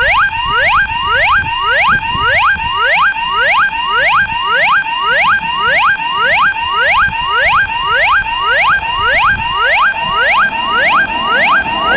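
Japanese railroad crossing warning bell ringing in a fast, steady rhythm, about two and a half strikes a second, each strike with a quick upward slide in pitch.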